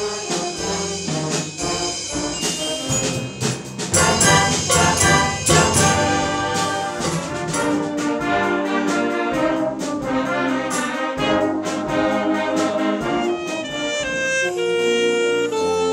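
Wind band playing, with brass to the fore and sharp percussion hits through the first half, thinning to a few held notes near the end.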